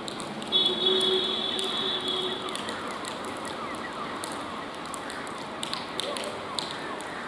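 Bombardier three-phase MEDHA EMU local train sounding its horn: one high-pitched blast of about two seconds, starting about half a second in, over a steady rushing noise from the approaching train.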